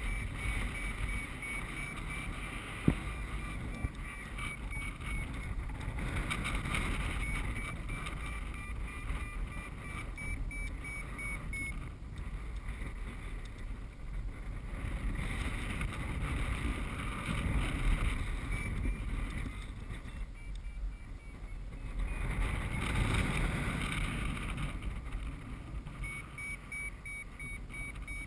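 Airflow of paraglider flight rushing over the microphone, rising and falling, with a variometer's short repeated beeps coming and going in stretches as the glider climbs in weak thermal lift. A single sharp click about three seconds in.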